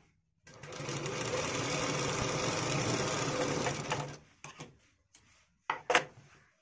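Straight-stitch sewing machine running steadily for about three and a half seconds as trouser fabric is stitched, then stopping. A few light clicks follow, then two sharp knocks near the end.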